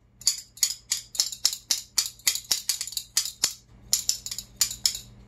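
A pair of metal spoons played as a percussion instrument, clacking together in quick strokes of about five or six a second, with a short break about three and a half seconds in.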